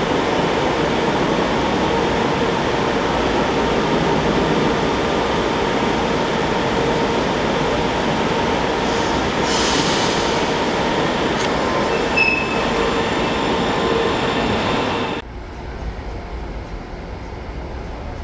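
Brasília Metro train running through a station: steady rolling noise with a constant hum, a brief high hiss about ten seconds in and a short wheel squeal about two seconds later. About fifteen seconds in the sound drops abruptly to a quieter low rumble.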